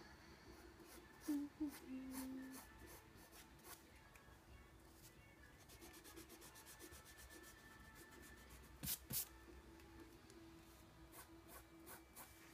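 Pencil strokes scratching faintly on sketchbook paper, with two short sharp taps about nine seconds in.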